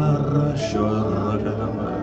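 Live worship music: sustained keyboard chords under many voices singing freely, a congregation singing in tongues.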